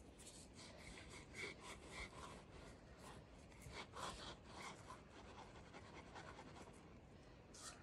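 Rough stones being pressed and twisted into sandy, gritty ground, making faint, irregular scrapes and crunches of grit.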